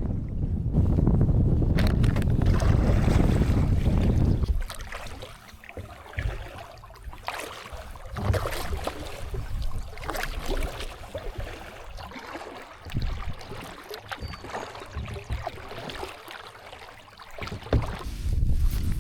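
Wind buffeting the microphone on a kayak, heavy for the first four seconds or so, then dropping away to lighter water splashes and scattered knocks against the kayak.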